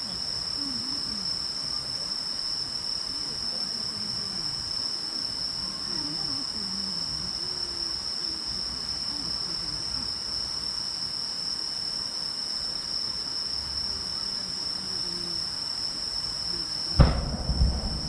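Insects chirring steadily, with faint voices murmuring underneath. About a second before the end comes one sudden loud boom from a large 12-inch fireworks shell, followed by a low rumbling echo.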